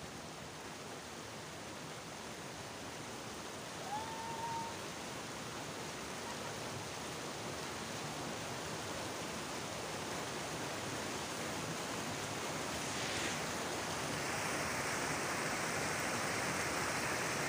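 Steady rush of a stream running over rocks, growing slowly louder, with a brief high call about four seconds in.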